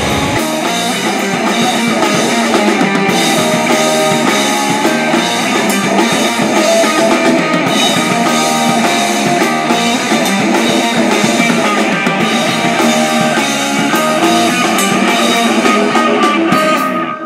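Rock music with a drum kit and guitar playing steadily, cut off sharply near the end.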